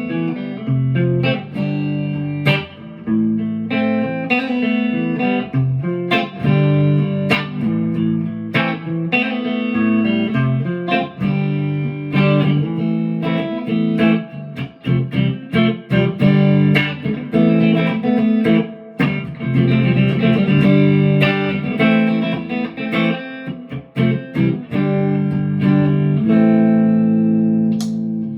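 PRS McCarty 594 Hollowbody II electric guitar played through a Marshall DSL40C amp, a run of picked notes and ringing chords.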